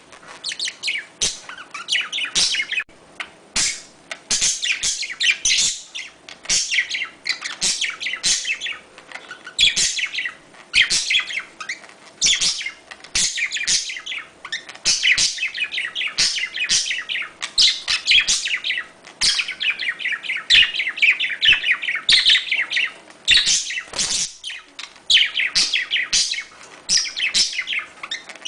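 Budgerigars chattering and warbling in fast strings of high chirps and squeaks, the courtship calls of breeding budgies, with only brief pauses.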